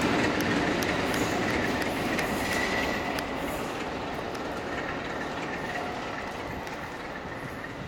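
Train of Mark 2 coaches with Class 47 diesel locomotive 47746 on the rear rolling by on the track, wheels clattering with a faint high squeal, the noise fading steadily as the train draws away.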